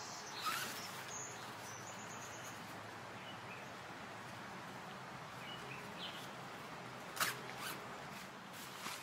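Outdoor ambience: a steady wash of background noise with a few brief scrapes or rustles, the sharpest about seven seconds in. A bird gives faint high chirps near the start.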